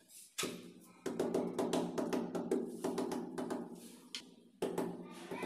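Ceramic wall tiles being tapped and knocked into their mortar bed: a quick, irregular run of knocks, thickest in the middle.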